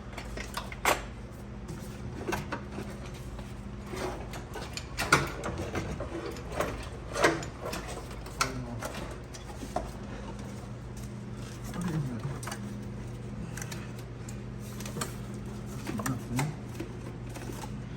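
Scattered metallic clicks and knocks of work on a car engine being hoisted out of the engine bay, over a steady low hum.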